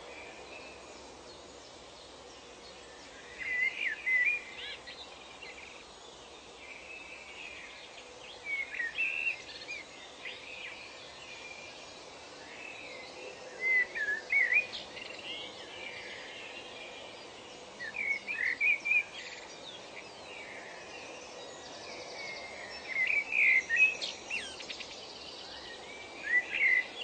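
A songbird singing short phrases of quick, warbling chirps that rise and fall, repeated about every five seconds, over a steady background hiss of outdoor ambience.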